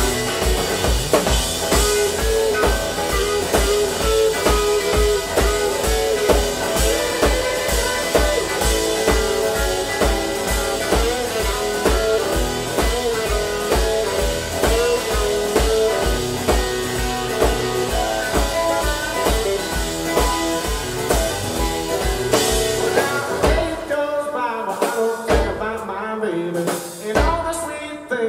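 Live blues-rock from an electric guitar and a drum kit, driven by a steady kick-drum beat, with bending guitar lines over it. Near the end the band drops to a few sparse stop-time hits.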